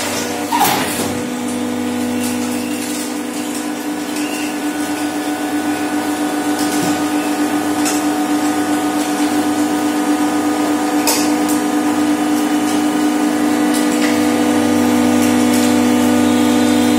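Hydraulic metal baling press's electric motor and hydraulic pump running with a steady hum, growing slightly louder over time. A sharp knock comes about half a second in, with a few faint clicks later.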